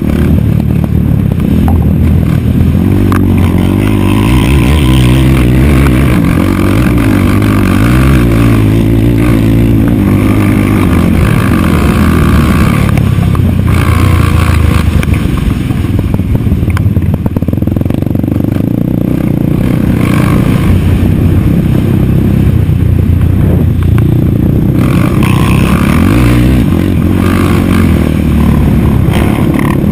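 Race quad's single-cylinder four-stroke engine running hard, revving up and dropping back again and again with gear changes and corners, heard from on board with rattle and scraping from the machine and track.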